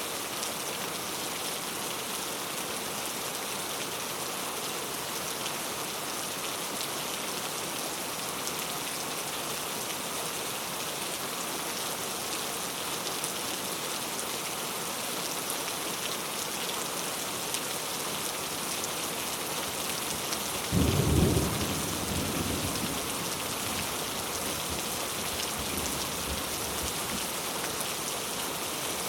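Steady heavy rain hissing, with a sudden clap of thunder about two-thirds of the way through that rumbles away over the next few seconds.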